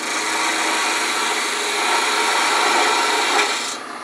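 Gouge taking a light cut on a wooden screwdriver handle spinning on a wood lathe, a steady shaving hiss that stops shortly before the end as the tool comes off the wood.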